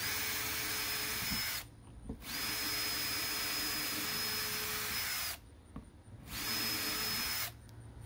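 Cordless drill running in three bursts of one to three seconds, each at a steady speed with a constant whine, working into the hard plastic of a door handle accent.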